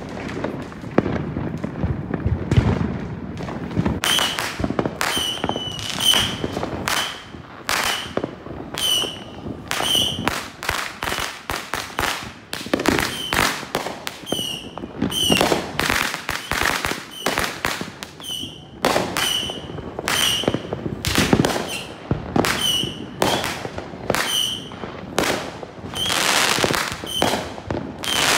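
Fireworks going off in quick, irregular succession: sharp bangs and cracks, many with a brief high note on top. They begin about four seconds in, after a softer stretch.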